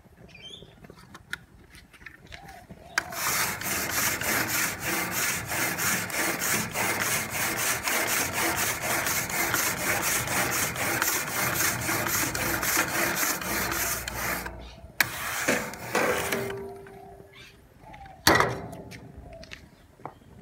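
Grill brush scrubbed back and forth over metal barbecue grill grates in rapid, even strokes for about eleven seconds. A shorter bout of scraping follows, then a single sharp knock near the end.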